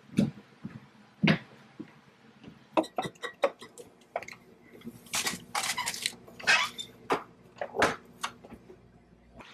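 Kitchen handling noises: a run of sharp knocks, clicks and clatter as items are taken out and set down on a counter, with a few longer rustles about halfway through.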